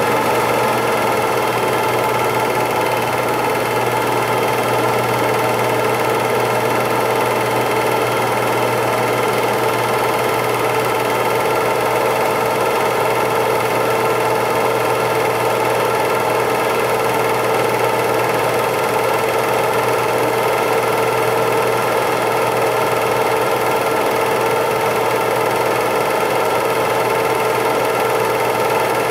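An 8mm film projector running, a steady mechanical whir and clatter of the film transport that does not change with the pictures.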